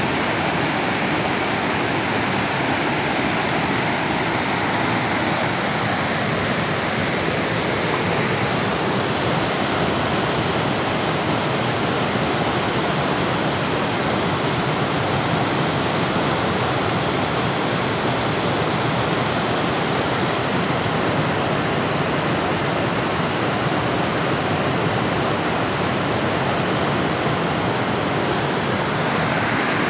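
Rushing water of a fast creek tumbling over and between boulders as whitewater rapids: a steady, unbroken rush.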